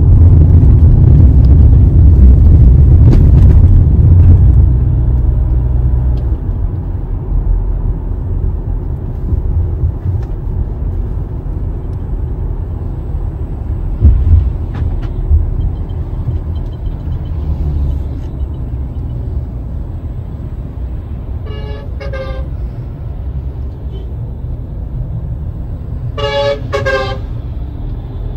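Engine and road noise inside a moving car's cabin, loudest in the first few seconds, with a sharp knock about halfway. A car horn toots briefly twice about three-quarters of the way through, and again near the end.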